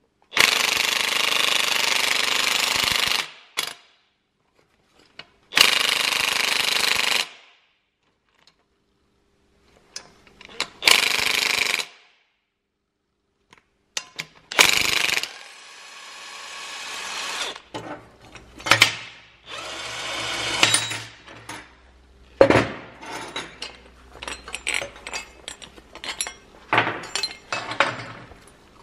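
DeWalt cordless impact wrench hammering a bolt tight through a 3D-printed PLA dimple die, pressing a dimple into 1.2 mm mild steel. It comes in four bursts of about three, one and a half, one and half a second, with pauses between. After that there are quieter short runs and a scatter of metal clicks and knocks as the die parts are handled; the die takes the press without failing.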